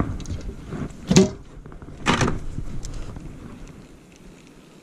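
Two short knocks about a second apart from fishing gear being handled in a small boat, over a low rumble that fades toward the end.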